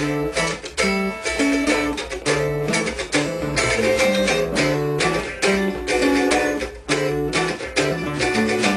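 Two acoustic guitars (violão) played together, chords strummed in a steady rhythm with notes ringing between the strokes.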